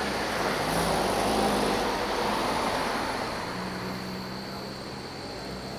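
A vehicle passing: a rushing rumble with a low engine hum swells about a second in, then slowly fades. A steady high insect drone runs underneath.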